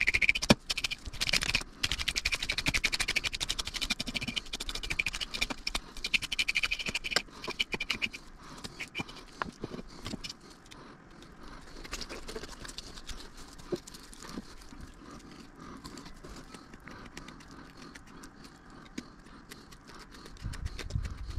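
Metal fish scaler raked fast against a large sucker's big scales, a dense rasping scrape for the first eight seconds or so. After that, fainter, scattered scratching as a fillet knife works along the fish.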